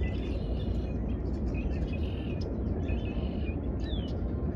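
Small birds chirping in short phrases that come back about once a second, one of them a quick falling whistle near the end, over a steady low rumble.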